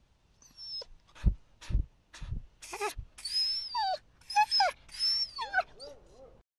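Golden retriever whining in high, squeaky, falling whimpers mixed with breathy snuffling bursts as it noses into a hole it is digging. Before that come four dull thumps, starting a little over a second in.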